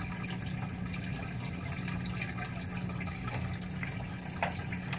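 Water in a turtle tank trickling steadily with a low, even hum, and a couple of faint clicks near the end.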